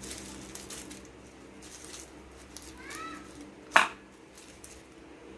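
A few light clicks of a metal fork working on roasted garlic cloves, with one sharp clink of metal on the pan or plate a little under four seconds in. Just before the clink comes one short high call that rises and falls.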